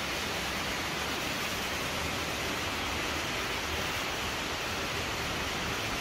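Steady rush of running water.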